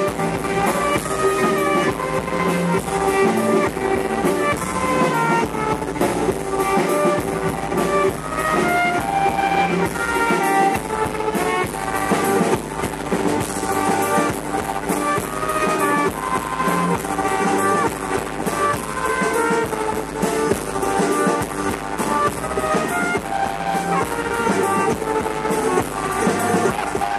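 Live band playing an instrumental passage, a trumpet carrying the lead over acoustic guitar, upright double bass and drum kit.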